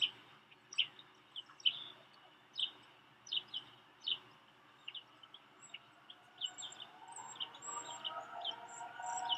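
Small birds chirping over and over, with a distant outdoor tornado warning siren starting to wind up about seven seconds in, faint and slowly rising in pitch.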